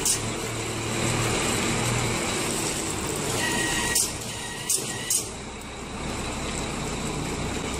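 Heavy-haulage truck passing slowly, its diesel engine running steadily and the long multi-axle trailer rolling by. A few sharp clicks come about four to five seconds in.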